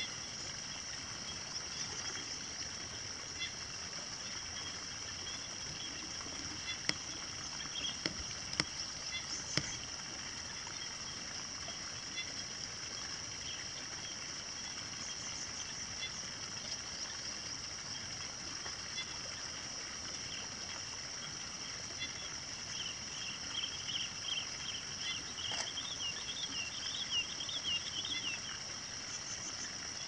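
Countryside ambience over a rice paddy: a steady high-pitched chorus of insects, with a bird chirping now and then in quick runs of notes, most busily near the end. A few sharp clicks come about eight to ten seconds in.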